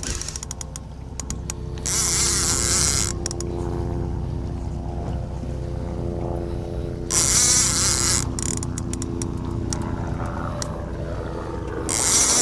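Boat engine running with a steady hum, broken three times by about a second of loud hissing, with scattered clicks in between.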